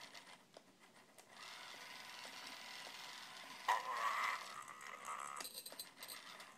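Circuit-bent Furby: its small gear motor whirring as the eyes and ears move, and its speaker giving a sudden distorted electronic tone a little past halfway that holds as a buzzy drone, with a few clicks near the end.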